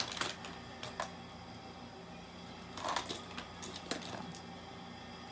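A few scattered small clicks and taps of makeup containers and tools being picked up and handled, over a faint steady hum.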